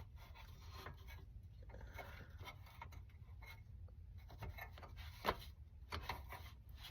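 Faint rubbing and scraping of a wipe across the greasy surface of a portable butane stove, with a short knock about five seconds in.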